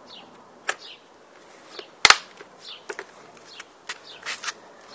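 A bird chirping in short, falling notes, with a few light clicks and one sharp, loud click about two seconds in.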